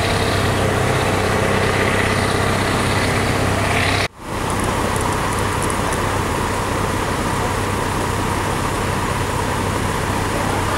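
A heavy vehicle's engine idling steadily under road traffic noise. The sound drops out for a moment about four seconds in and then carries on the same.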